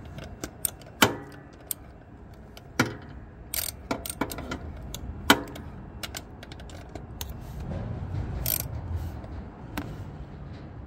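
Socket ratchet on an extension snugging the throttle body bolts into a plastic intake manifold, giving a few separate sharp clicks and clinks. Near the end there is a low rumble.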